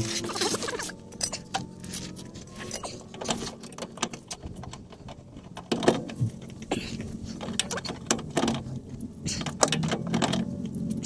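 A wrench working a rusty nut on a car's rear axle beam mounting: irregular metallic clicks and knocks of the tool on the fastener, the loudest about six seconds in.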